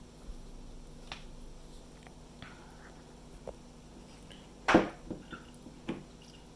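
Light clicks and taps from handling a small plastic doll and its feeding parts, with one sharper knock about three-quarters of the way through and a couple of smaller ticks after it.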